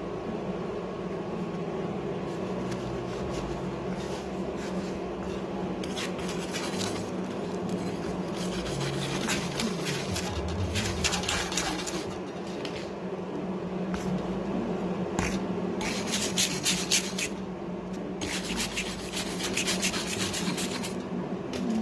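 Wire brush scrubbing a fresh TIG weld on stainless steel in several spells of quick rasping strokes, the longest in the second half, over a steady low hum.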